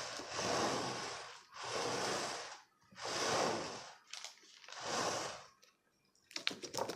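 Four loud breaths close to the microphone, each about a second long, coming roughly every second and a half, followed near the end by a few sharp clicks of handling.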